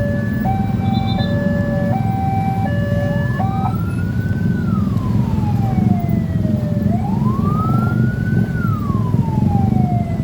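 Electronic siren sounding a two-tone hi-lo pattern, switching about twice a second, that changes about three seconds in to a slow wail rising and falling twice, over a steady rumble of road traffic.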